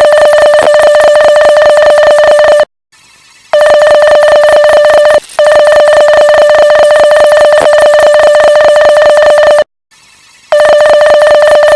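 Loud Morse code beep: one steady mid-pitched tone with a rapid flutter. It sounds in long runs of a few seconds, broken three times: about a quarter of the way in, again briefly just before halfway, and near the end.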